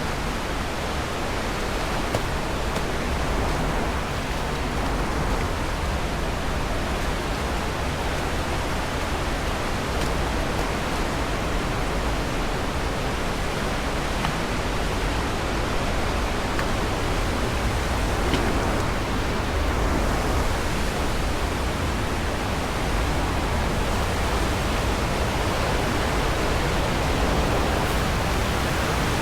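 Rushing water of a river waterfall: a steady, unbroken wash of noise from deep to high.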